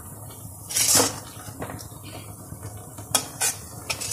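Metal spatula scraping food out of a steel kadhai, with one longer scrape about a second in and a few sharp clanks and taps against the pan and bowl near the end.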